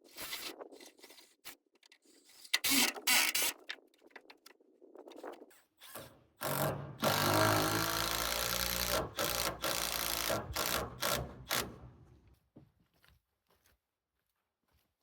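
A power drill running in long steady runs for about five seconds, starting about six seconds in, as screws are driven into the shed's boards. Before it come rustling and a few sharp knocks from handling the wood.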